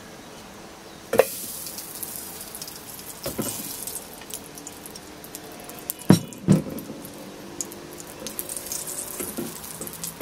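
Butter sizzling and crackling as it melts in a hot stainless steel pan. The sizzle starts about a second in, with a knock as the first spoonful goes in, and a metal spoon knocks against the pan a few more times.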